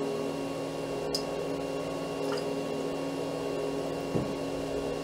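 A steady appliance-like hum holding several constant pitches, with a faint soft knock about four seconds in.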